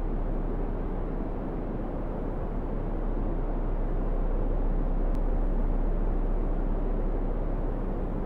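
Seaside ambience: a steady rush of wind and sea with a deep constant rumble underneath.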